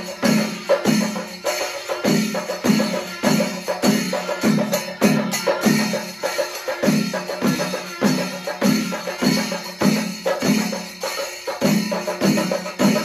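A Kerala temple percussion ensemble, chenda melam style, plays loudly: chenda drums and brass cymbals beat dense, sharp strokes over a steady repeating pulse of about one and a half beats a second, with kuzhal reeds and curved kombu horns sounding along.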